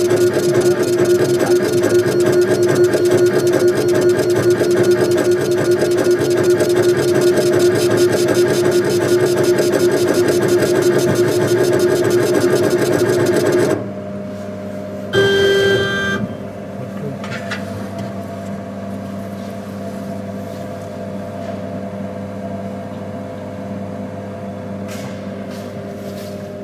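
Background music with a fast, even beat that cuts off about halfway through. It leaves the steady hum of a CO2 laser engraving machine at work, with one short loud beep soon after.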